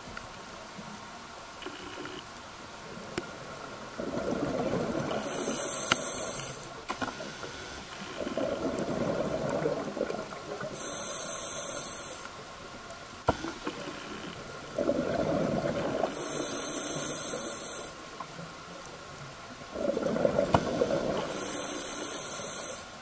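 Scuba diver breathing through a regulator underwater: a burst of bubbling exhaust and a hissing inhale about every five seconds, four breaths in all. A faint steady hum runs underneath.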